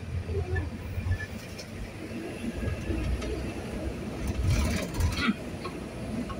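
Low, steady rumble of a large road vehicle driving on a wet road, heard from inside the cab. A couple of brief rattles come a little past the middle.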